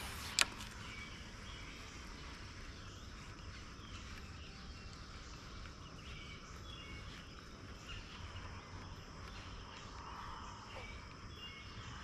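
Outdoor ambience of insects trilling steadily and birds giving short, repeated chirps. A single sharp click sounds about half a second in.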